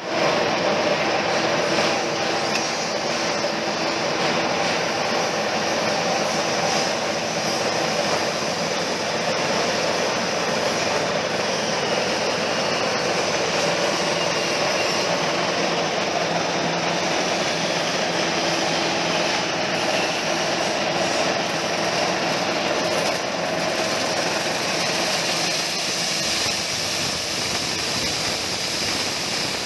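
Dry-coffee huller driven by a small engine, running steadily while dried coffee beans are fed through and hulled.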